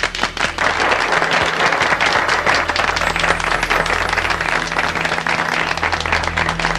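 A crowd applauding, many hands clapping together in a dense, steady patter.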